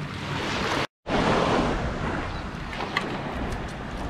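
Wind on the microphone over small surf washing onto the beach, a steady noisy hiss. It drops out for a moment about a second in, then carries on.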